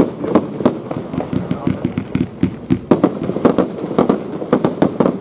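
Crown Collection 'Genesis' fireworks firing: a rapid, uneven string of sharp bangs, about three or four a second, as the shots burst overhead.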